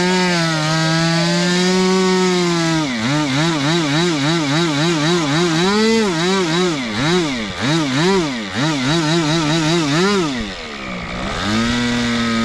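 Nitro glow-plug model airplane engine running at high revs. Its note holds steady for a few seconds, then rises and falls rapidly over and over, dips briefly near the end, and settles on a higher steady note.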